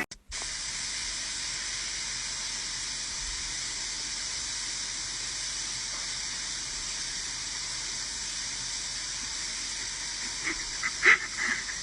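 A steady, even hiss, with a few short high-pitched squeaks near the end.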